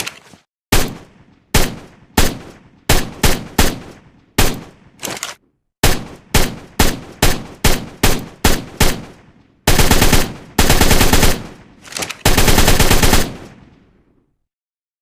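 Assault rifle gunfire sound effect. About twenty single shots come at an uneven pace, each with a short echoing tail. Then, about ten seconds in, come three bursts of fully automatic fire, the last one fading out.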